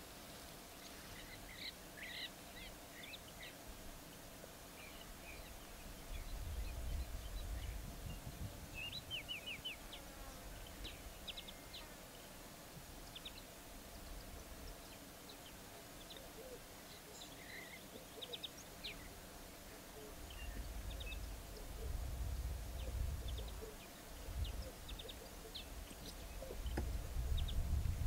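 Outdoor bush ambience: small birds chirping in short, scattered calls, over a faint steady hum. A low rumble swells twice, about six seconds in and again for several seconds in the last third.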